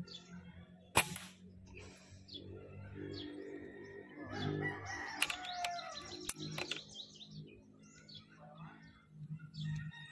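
A single sharp crack about a second in: the PCP air rifle with its Lothar Walther barrel firing a pellet. Birds call in the background.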